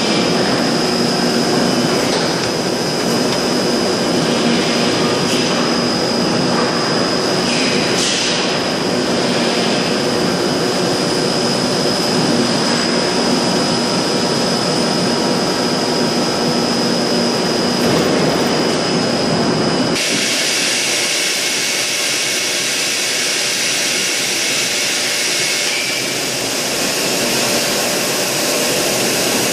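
Steady, loud machinery noise in a plastic drum factory, with a constant high whine running through it. About two-thirds of the way in the sound changes suddenly and the low rumble drops away, leaving the hiss and whine.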